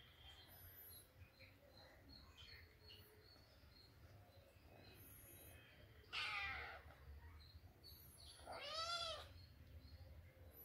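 A cat meowing twice, about two seconds apart, the second meow rising and falling in pitch.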